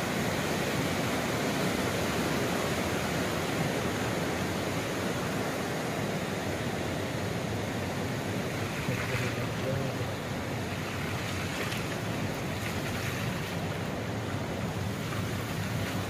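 A river in flood: swollen, fast floodwater rushing in a steady wash of noise.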